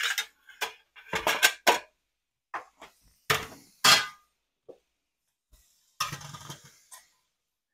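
Metal cookware being handled and set down: a series of separate clinks and clanks of a pan and a metal plate, then a short scraping rustle about six seconds in.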